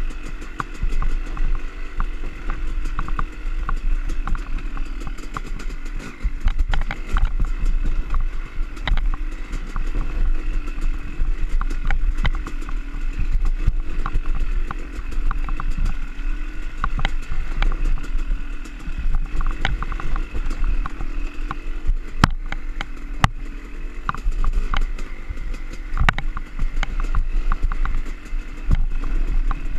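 Yamaha YZ250 two-stroke dirt bike engine running steadily while riding a rough trail, with frequent knocks and clatter from the bumps.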